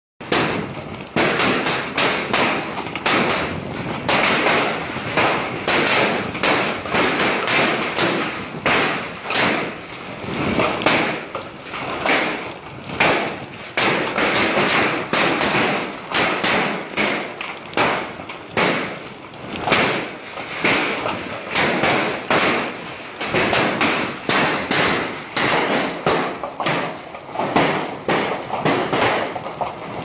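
Heavy hailstorm: large hailstones pelting the ground in a dense, continuous hiss of falling ice, with frequent loud thuds of single stones striking.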